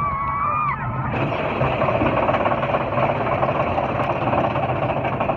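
A high, held scream from a rider ends about a second in, giving way to the steady rattling rush and low rumble of the Big Thunder Mountain Railroad mine-train roller coaster running along its track.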